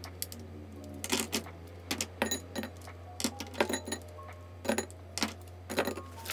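Plastic highlighters and pens clacking against one another as they are handled and sorted, some set down into a glass cup, in irregular sharp clicks several times a second.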